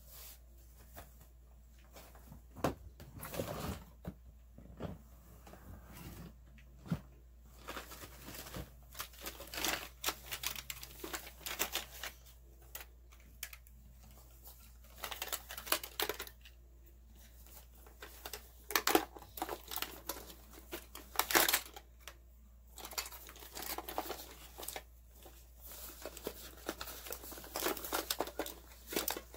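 Makeup items being handled and taken out of clear plastic storage drawers: irregular rustling, crinkling and small plastic knocks, with a drawer being slid shut.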